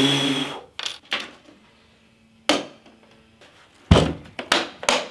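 Black plastic Games Workshop carry case being handled: a brief scrape at the start and a few light plastic clicks, then a solid thunk about four seconds in followed by quick sharp clicks as the lid is shut and latched.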